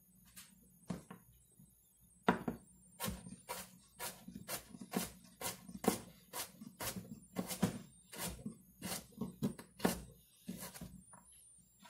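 Chef's knife cutting a turnip on a plastic cutting board: a run of sharp knocks of the blade striking the board, about three a second, starting about two seconds in.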